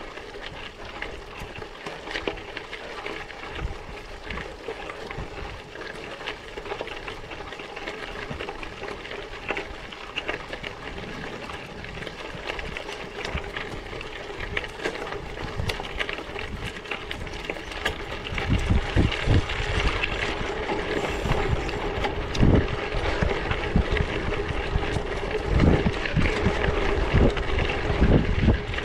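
Bicycle on 700x38c tyres ridden over rough off-road ground: steady tyre and frame rattle with many sharp knocks. About 18 seconds in, wind buffeting on the microphone joins and the sound grows louder.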